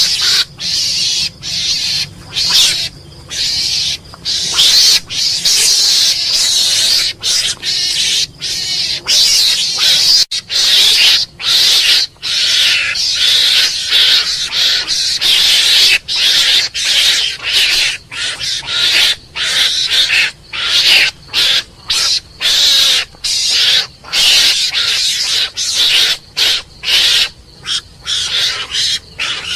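Mongoose calling: a rapid, continuing run of short, hissy, high-pitched calls, each a fraction of a second to about a second long, with brief gaps between them.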